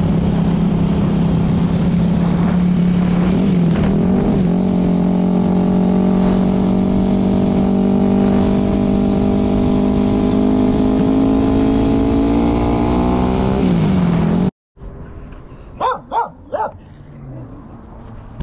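Yamaha YZ250 two-stroke dirt bike engine running while riding, loud and steady, with a brief dip in pitch about four seconds in, then slowly climbing and falling away before the sound cuts off abruptly. Near the end a dog barks three short times.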